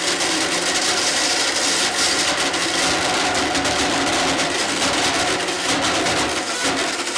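Blendtec blender running at high speed, its motor whirring steadily and loudly as it grinds glow sticks to pieces in the jar.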